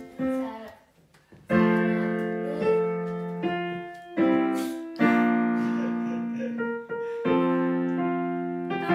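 Digital piano played by a child: a birthday song in slow, held chords, each struck and left to fade, with a short pause about a second in.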